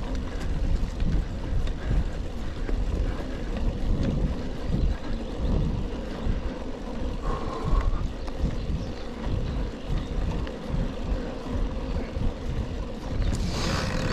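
Wind buffeting an action camera's microphone over the rumble of a Rockrider XC 900 mountain bike's tyres on a forest trail while riding. A brief squeak about halfway through and a short burst of hiss just before the end.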